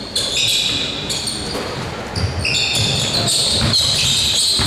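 Basketball being dribbled and sneakers squeaking on a hardwood gym floor during play: many short, high-pitched squeaks over repeated low ball thuds.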